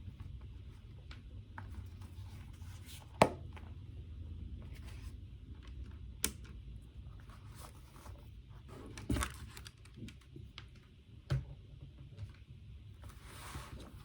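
Desk sounds of someone studying: a few scattered taps and clicks, the loudest about three seconds in, with light paper-like rustling, over a steady low room hum.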